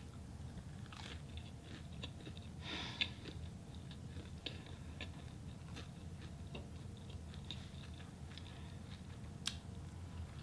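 A person chewing food close to the microphone: a run of soft, irregular mouth clicks and smacks, with a louder crunchy bite about three seconds in.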